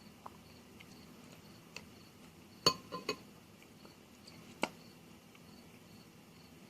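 A few light clinks of a utensil against a dish: a sharp one about two and a half seconds in, two softer ones right after it, and another about a second and a half later.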